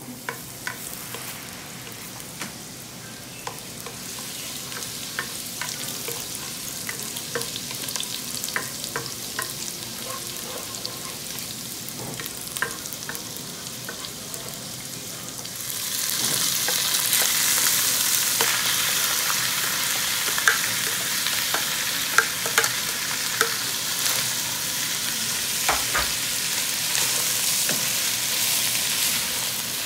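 Minced garlic sizzling in oil in a nonstick pot, stirred with a spatula that clicks and scrapes against the pan. About halfway through, shredded chicken goes in and the sizzle gets louder.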